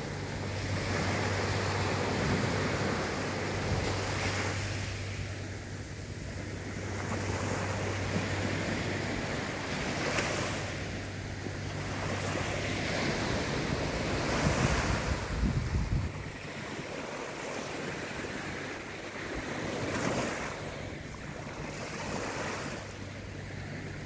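Small Mediterranean waves breaking and washing up a sandy beach, the surf swelling and easing every few seconds, with wind on the microphone.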